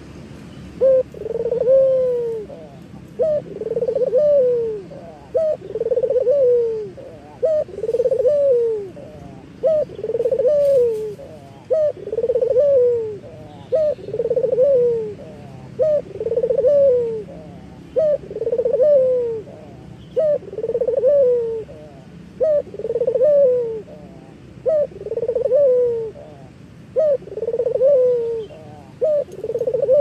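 A puter lokal (ringneck dove) cooing in steady repetition, about one call every two seconds. Each call is a short note followed by a longer rolling coo that drops in pitch at the end.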